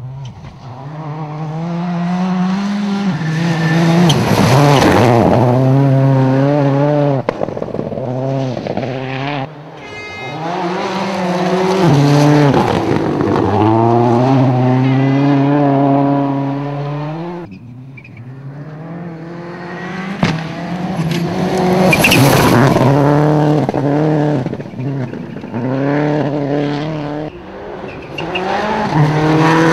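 Turbocharged four-cylinder World Rally Cars, a Peugeot 206 WRC and then a Subaru Impreza WRC, passing at full throttle on a gravel stage. The engine pitch climbs and drops again and again through gear changes and lifts, with gravel and dust spraying from the tyres. There are three loud passes, the first two by the Peugeot and the third by the Subaru, about two-thirds of the way in.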